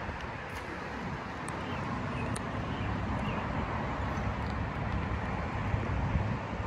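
Outdoor wind rumbling on the microphone mixed with traffic noise, swelling through the middle and easing near the end.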